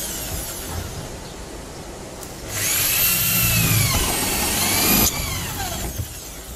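Corded electric drill running for about two and a half seconds, starting about two and a half seconds in, its pitch rising and falling as it drives a screw into a steel-faced EPS sandwich wall panel.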